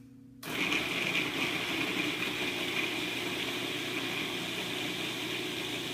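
Cuisinart food processor switched on about half a second in, its motor and blade running steadily as they grind cauliflower florets into fine crumbs.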